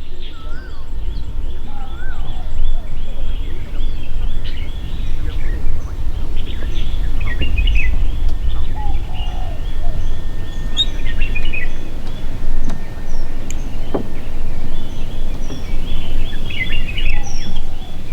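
Several small birds chirping and whistling in short, scattered calls over a steady low rumble.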